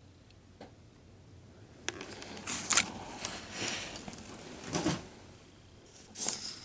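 Handling noise: several short bursts of rustling with a few light clicks, as something is picked up and moved about by hand, with a last brief rustle near the end.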